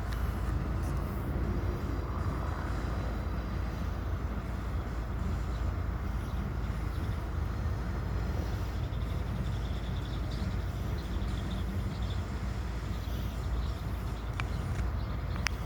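Low, steady rumble of a Norfolk Southern GP switcher locomotive running past, with no horn sounding.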